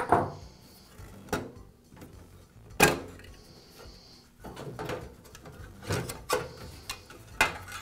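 Plastic grill and sheet-metal reflector of a bathroom vent-fan being worked loose and lifted off the fan housing: scattered light clicks and knocks with soft rustling between, the sharpest knock about three seconds in.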